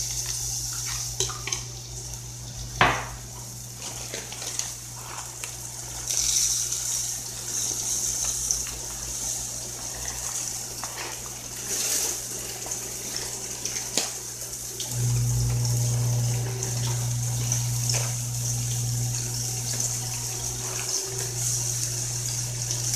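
Homemade garlic-and-onion seasoning sizzling in hot oil in two pans, a steady hiss that swells and fades. A steady low hum runs beneath and grows louder about 15 s in, with a sharp knock about 3 s in.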